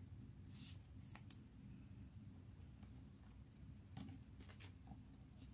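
Near silence with a few faint clicks and rustles of trading cards being picked up and handled on a table, around a second in and again about four seconds in.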